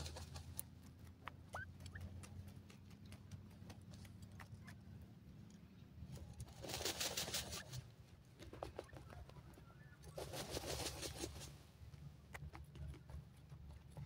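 Grey francolin hen and chicks shifting in dry soil: soft scratching and rustling with scattered small clicks, two longer stretches of rustling about seven and ten seconds in, and a faint short rising chick peep early on.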